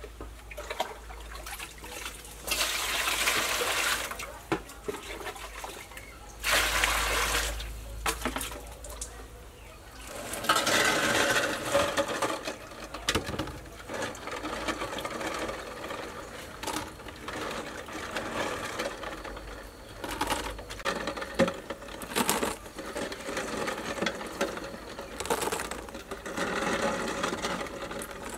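Water being poured into a metal basin in two short bursts, then splashing and sloshing as quail eggs are washed by hand in it. Later come many light clicks of the small shells knocking together as handfuls of wet eggs are lifted into a plastic basket.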